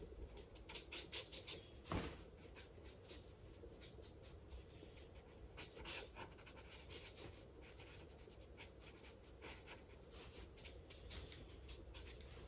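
Marker drawing on sketchbook paper: many short, faint strokes of the felt tip across the page, with a louder stroke about two seconds in.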